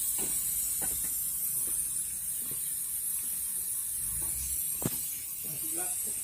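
Steady high hiss of paint being sprayed onto a scooter body panel, with scattered light clicks and a sharper knock about five seconds in.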